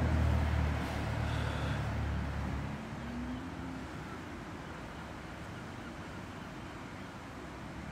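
A passing motor vehicle, its engine sound fading out about three seconds in, leaving a steady background of outdoor noise.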